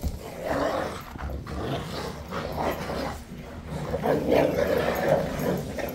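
Two Rottweilers growling as they scuffle over a bone, in uneven bouts that are loudest about four to five seconds in.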